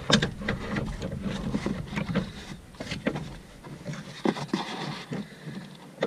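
Irregular clicks, knocks and rustling as a car seat belt retractor and its webbing are handled and fitted into the lower mount in the door pillar.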